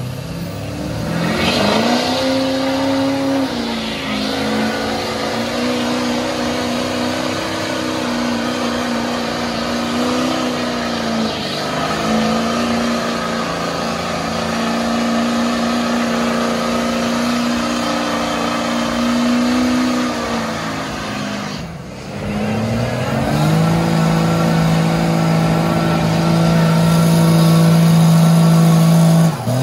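Big modified truck engines held at high revs under hard load in a truck tug-of-war. The pitch climbs, then holds and steps up and down for long stretches. It drops away about two-thirds through, revs back up to a high steady pitch, and cuts off suddenly near the end.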